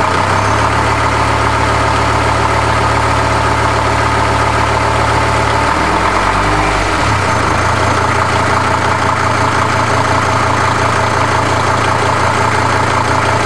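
Mercedes-Benz W210 E290's OM602 five-cylinder turbodiesel idling steadily, with a brief wavering in its low note about six seconds in. The owner suspects a knock that appeared with the cold weather but is not sure it is really there.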